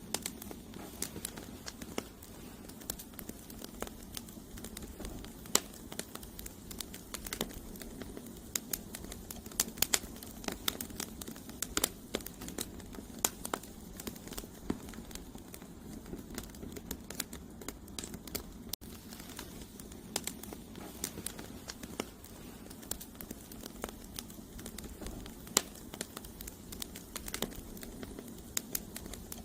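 Campfire of split firewood logs burning, crackling with frequent sharp, irregular pops over a steady low rush of flame.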